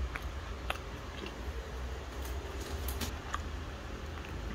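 Small scattered clicks and crackles of a crunchy biscuit being chewed and a clear plastic biscuit tray being handled, over a low steady hum.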